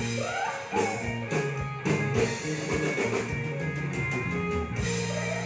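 Live rock band playing electric guitar and drum kit. Near the end the drums stop and a single chord is held.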